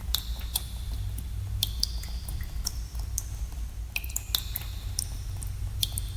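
Water drops dripping in a cave, each landing as a sharp plink with a brief high ringing tone, irregularly about two a second, over a steady low rumble.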